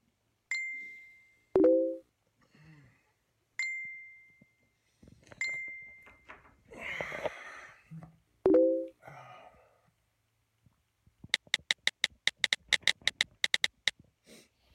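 Smartphone notification dings: three single high tones that fade out, a second or two apart, with two short loud low buzzes among them. Near the end comes a quick run of sharp clicks, about eight a second, for two or three seconds.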